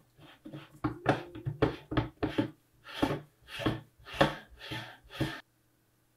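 Metal adaptive optics unit being screwed by hand onto a camera filter wheel: a run of short rubbing and knocking handling sounds, about two a second, one for each regrip and turn of the hand. It stops abruptly a little over five seconds in.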